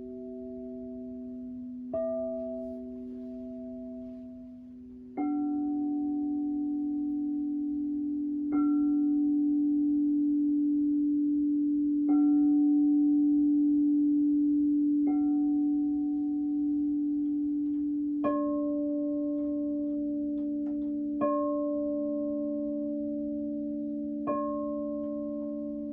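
Crystal singing bowls struck one after another, about every three seconds, each strike leaving a long ringing tone that overlaps the ones before into a sustained chord. The pitches change twice as different bowls are played.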